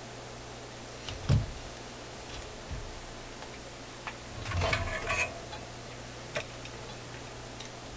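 Tools and small parts being set down and picked up on a workbench: a few light clicks and knocks, the loudest about a second in, and a short run of clicks around four to five seconds, over a faint steady hum.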